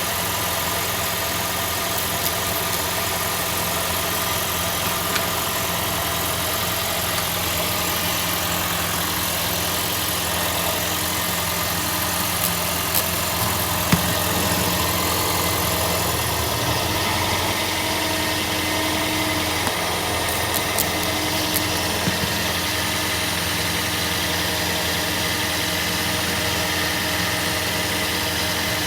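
2005 Toyota Prius's 1.5-litre four-cylinder petrol engine idling steadily, its exhaust running through a newly installed catalytic converter with no leaks at the joints. A few small clicks stand out about halfway through.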